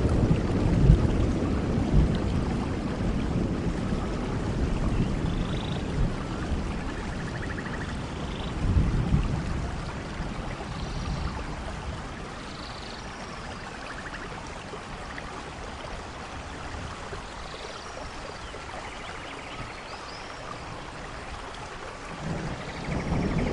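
Steady rain with rolling thunder: a low rumble dies away at the start, another rolls about nine seconds in, and a new one builds near the end, over a constant rain hiss with a few faint high chirps.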